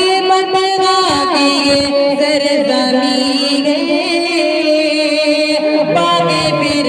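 A man's voice singing a naat into a microphone, holding long notes and gliding between pitches in ornamented runs.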